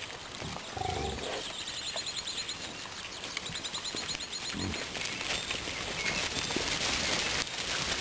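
Wild boars grunting low, once about half a second to a second in and again about four and a half seconds in. Repeated rising high bird notes sound in between. A growing rustle of grass over the last few seconds as the herd runs off through the clearing.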